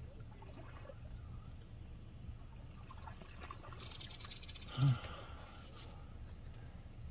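A moose feeding in shallow pond water, with faint water sloshing over a low steady rumble. About five seconds in comes a brief, louder low-pitched sound, and a single click just after it.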